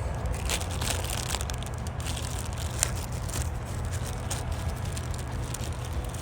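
Scattered light clicks and rustles of small parts being handled as the rotor goes onto a Ford 2N tractor's distributor, over a steady low hum.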